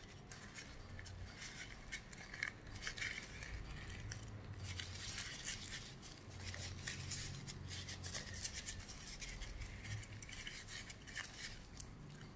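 Faint scratchy rubbing and small clicks of a plastic vape pod being wiped clean with a tissue and turned in the fingers.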